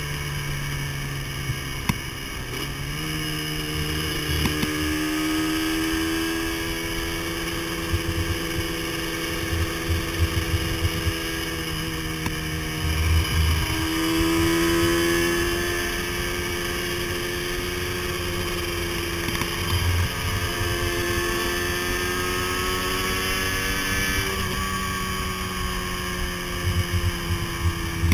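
Motorcycle engine running at road speed, its pitch rising and falling several times with the throttle, over wind rumble on the microphone.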